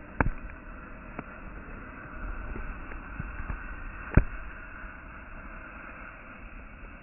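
Fireworks going off: a sharp bang about a quarter second in and a louder one about four seconds in, with a few fainter pops between, over a steady hiss.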